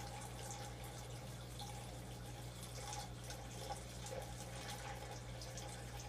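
Water poured in a steady stream from a plastic jug into a small glass aquarium, trickling and splashing into the water already in the tank. A steady low hum runs underneath.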